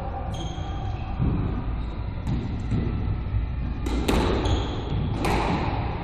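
A squash rally: the ball cracks off rackets and the court walls with echoing smacks, the two loudest about four and five seconds in, along with smaller knocks earlier.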